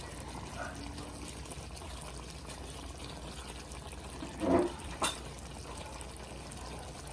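Mechado sauce simmering in a wok, a steady bubbling hiss. A brief louder sound about four and a half seconds in, then a sharp click.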